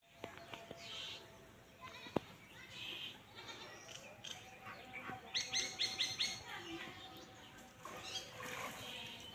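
An animal call around the middle, quavering in about five quick pulses, among scattered short chirps, with a single sharp click about two seconds in.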